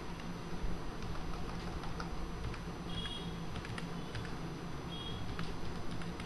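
Computer keyboard being typed on: scattered single keystrokes over a steady background hiss and low hum.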